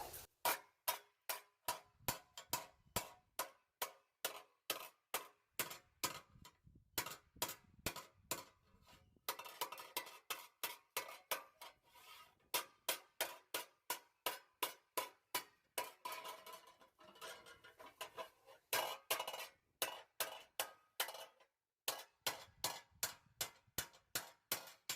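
A hammer striking a piece of sheet metal on an anvil, shaping it cold: a steady run of ringing metallic blows, two or three a second, with a few short pauses.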